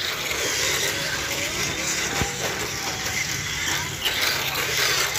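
Tamiya Mini 4WD cars running on a plastic two-lane track: the small electric motors and wheels make a steady, even whirring noise along the track sections.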